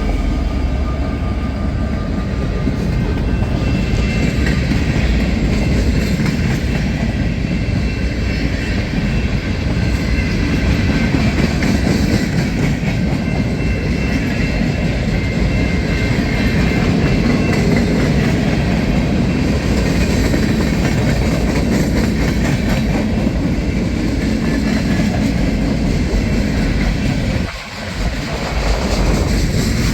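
Train rolling past close by: a steady loud rumble of railcars on the rails, with a brief dip in the noise near the end.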